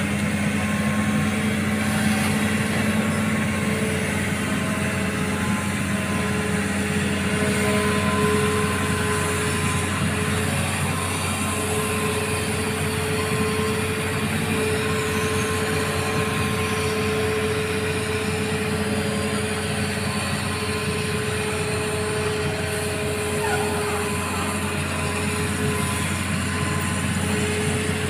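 Excavator's diesel engine running steadily under load, with a steady whine over its low drone.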